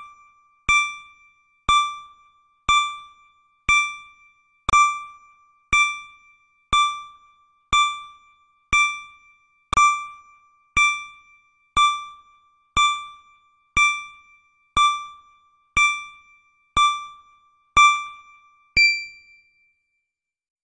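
Countdown timer's electronic chime ticking once a second: each is a short, sharp-edged ringing tone that fades quickly. The last, about nineteen seconds in, carries an extra higher tone as the count reaches zero.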